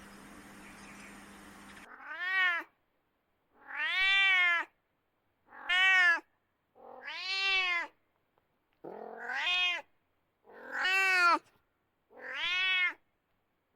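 Domestic cat meowing, seven separate meows about every one and a half to two seconds, each rising then falling in pitch.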